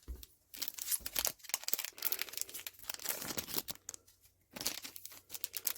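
Foil booster-pack wrappers of a trading card game crinkling and tearing as packs are opened, in irregular crackles with a short pause about four seconds in.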